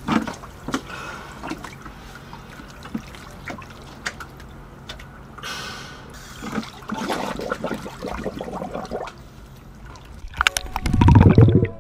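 Water splashing and sloshing around a scuba diver as he slips off a boat's swim platform and goes under. Near the end, louder music comes in.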